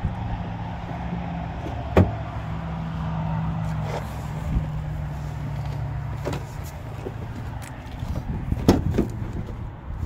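Steady low hum of a running engine nearby, under a series of sharp clicks and knocks as a pickup truck's cab door is unlatched and swung open. The loudest knocks come about two seconds in and near the end.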